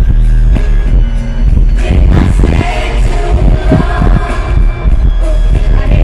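Loud live pop concert music from a stadium sound system, recorded in the crowd: heavy bass with a singer's voice over it.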